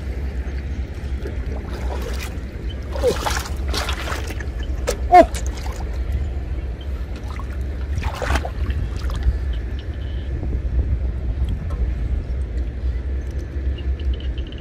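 Water splashing and dripping as fish are pulled from a gill net in shallow water, a few short splashes about three, four, five and eight seconds in, the sharpest about five seconds in. A steady low rumble of wind on the microphone lies underneath.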